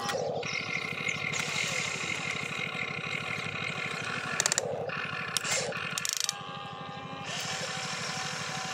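Toy RC excavator's electric gear motors whirring steadily as it swings its boom and dumps a bucket into the dump truck. There are short bursts of sharp clicking and clatter about four and a half seconds in and again around five and a half to six seconds.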